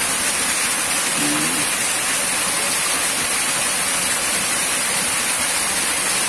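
Steady rush of a river's flowing water, high after the night's rain, with a constant high-pitched hiss over it.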